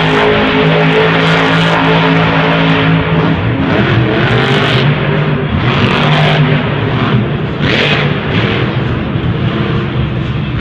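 Monster Mutt Rottweiler monster truck's supercharged V8 engine running loud, holding a steady note at first, then revving up and down several times as the truck drives and jumps.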